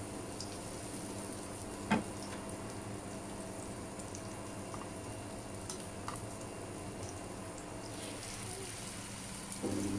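Eggplant-and-egg omelette patties sizzling steadily in shallow oil in a non-stick frying pan, with a single sharp click about two seconds in.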